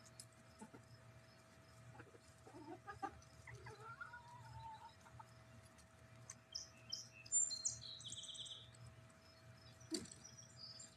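Backyard hens clucking softly and making low murmuring calls while they forage on the grass, with a brief run of high chirps about two-thirds of the way through.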